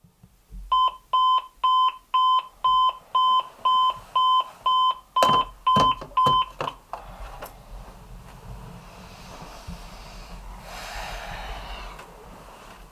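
RCA digital alarm clock beeping, about twelve identical mid-pitched beeps at two a second. About five seconds in, a hand knocks at the clock several times and the beeping stops. A soft rustling follows near the end.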